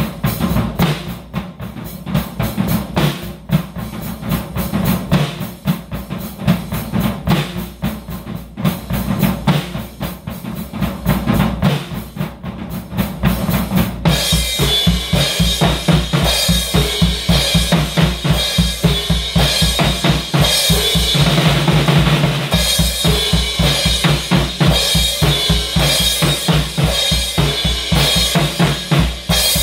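Drum kit played solo: drum strokes in a busy groove for the first half, then about halfway through Paiste cymbals come in with a dense, ringing wash over fast, steady drumming.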